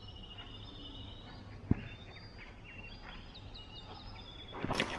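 Birds chirping over a steady low hum, with one sharp knock about a second and a half in. Near the end a cricket bat strikes the ball in a louder burst of knocks.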